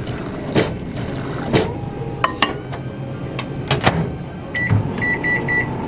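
A few sharp clicks and knocks, then a Daewoo microwave oven's keypad beeping as its buttons are pressed: one short beep, then a quick run of four.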